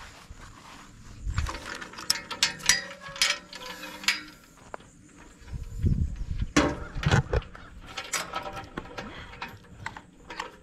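Steel tube corral gate and its chain latch rattling and clanking as they are handled: metallic clatter in two spells, about two seconds in and again around six seconds in.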